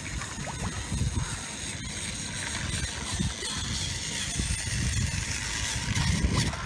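Battery-powered Trackmaster toy train motors whirring along plastic track, with splashes as the toy engines tip off the end of the track into pool water. An irregular low rumble runs underneath.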